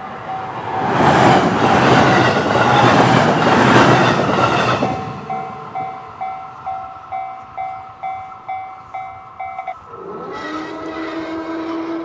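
An electric train passes a Japanese railway level crossing at speed, a loud rushing rumble lasting about four seconds. The crossing's warning bell rings with about three dings a second, then stops near the end.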